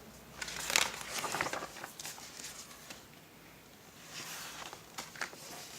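Paper rustling and a few light clicks as the pages of a picture book are handled and turned, loudest in the first couple of seconds and again about four seconds in.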